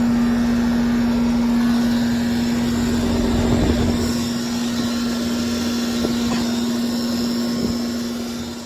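2007 4-ton Trane air-conditioning condenser making a steady electrical buzz, one unbroken humming tone over a rushing background noise. The buzz is typical of a dying unit, and its owner thinks it comes from the electrical panel. It fades near the end.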